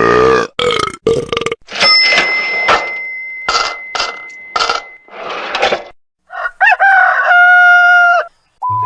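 A rapid string of short, unrelated comedy sound-effect clips cut one after another: a burp-like sound at the start, a series of short noisy bursts, a long held pitched call a little before the end, and a short steady beep at the very end.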